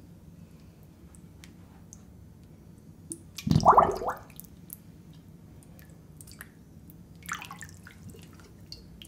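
Wet squelching as a hand handles leafy greens on a wooden floor: a loud squelch about three and a half seconds in and a smaller one near seven seconds, with small clicks and taps between.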